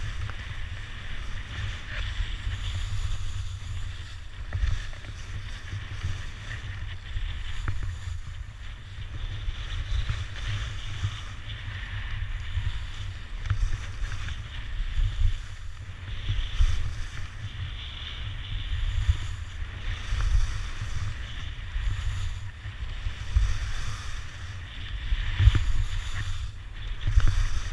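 Wind buffeting the camera microphone while skiing downhill, with the hiss and scrape of skis on packed snow rising and falling through the run.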